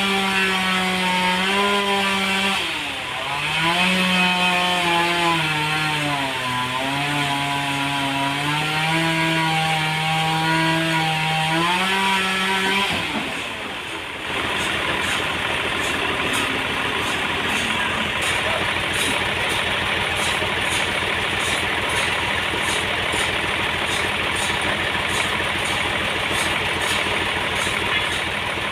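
A sawmill saw cutting through a trembesi (rain tree) log. Its machine drone wavers and dips in pitch as the load changes. About 13 seconds in, the tone drops away and a steady, noisier machine sound carries on.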